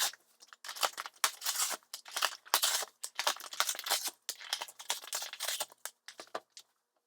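Cardboard tabs being torn off McDonald's 20-piece chicken nugget boxes: a run of irregular tearing and crinkling, stopping shortly before the end.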